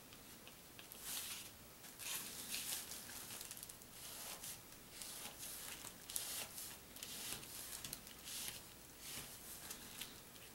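Paint-marker tip scratching across a paper hang tag: a series of short, faint drawing strokes, beginning about a second in.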